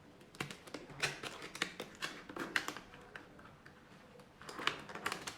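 Small objects being handled: two flurries of clicks, light knocks and rustles, the second about four and a half seconds in.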